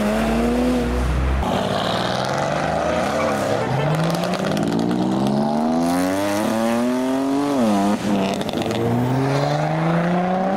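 Car engines accelerating along the road: the revs climb steadily for a few seconds, drop back, and climb again about three times, with a sharp drop about eight seconds in.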